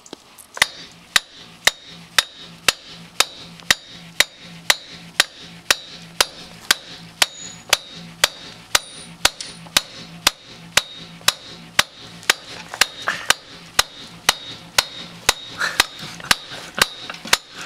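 Repeated, evenly spaced blows struck on a connector under an impact test, about two hits a second.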